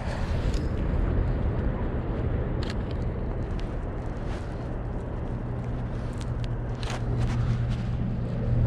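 A distant engine's steady low hum that grows louder toward the end, over a constant outdoor noise of traffic and wind, with a few short faint clicks.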